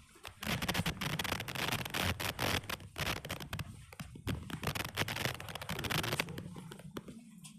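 Scraping and crackling noise right on the microphone, the recording device being handled or rubbed. It lasts about six seconds and then dies down.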